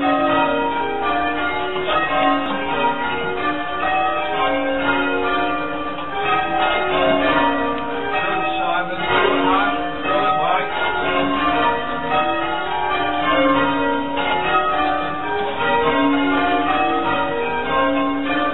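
Church bells rung full-circle by rope in change ringing, on a ring of six with a tenor in B-flat: an even, unbroken stream of bell strikes, each bell sounding in turn, heard from the ringing chamber below the bells.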